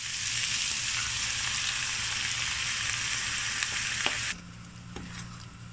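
Chicken and vegetable pieces sizzling loudly in a hot frying pan. A little over four seconds in, the sizzle drops abruptly to a much quieter hiss with a low steady hum and a few faint clicks.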